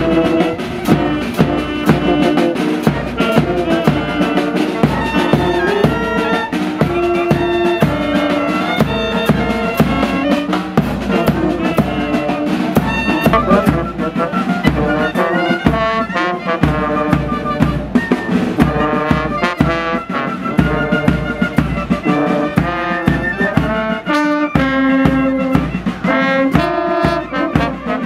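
Brass band playing a tune: trumpets, trombones, saxophone and euphonium carrying the melody over a steady bass-drum and snare beat.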